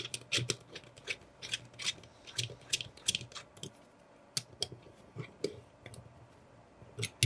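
Hex key turning a small screw in the Planet Eclipse CS3 paintball marker's frame: a quick run of light metal clicks and scrapes for the first few seconds, then a few scattered taps as the part is handled.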